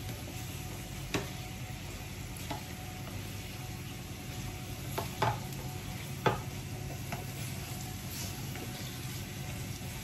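Potato slices frying in a steel pan with a steady sizzle while being stirred with a spatula, which knocks against the pan about six times.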